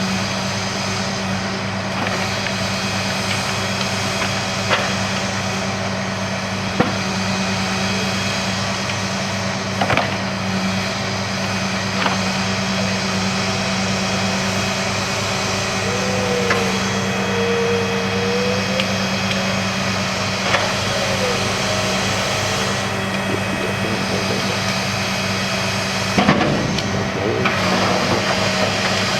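Engine of heavy track-work machinery running steadily, with occasional sharp metallic knocks, and a wavering squeal for a few seconds past the middle.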